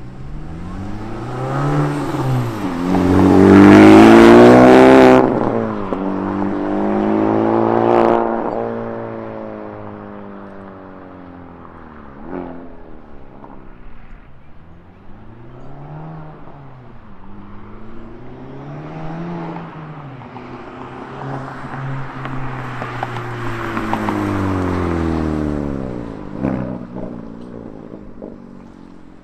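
Exhaust of a 2024 Acura Integra Type S, its 2.0-litre turbocharged four-cylinder breathing through a Milltek non-resonated cat-back in comfort mode, accelerating past. The note climbs in pitch to a loud peak a few seconds in, cuts off sharply as the throttle is lifted, then falls and fades as the car moves away. Smaller rises follow, and it builds again for another pass in the second half.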